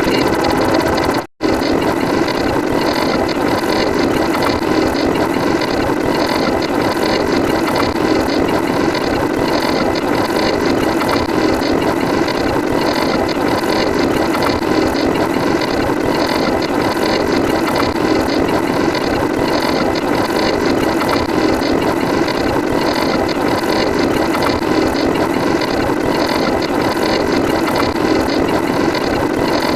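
Dense, continuous mechanical clattering, like a ratchet or gears turning, broken by a short silent gap about a second in.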